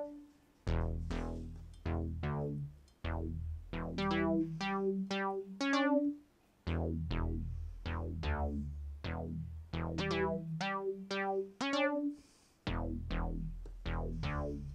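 Synthstrom Deluge synthesizer playing a looped sequence of short, quickly decaying synth notes over a low synth bass. The loop repeats about every six seconds, with a brief near-silent gap before each repeat.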